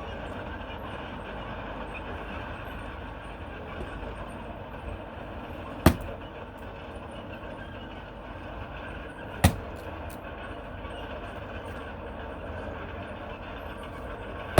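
Two sharp strikes of an axe splitting firewood, about three and a half seconds apart, over a steady low rumbling background.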